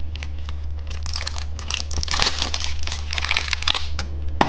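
Plastic candy wrapping crinkling and rustling as a packaged surprise candy egg is handled and opened, a continuous run of small crackles.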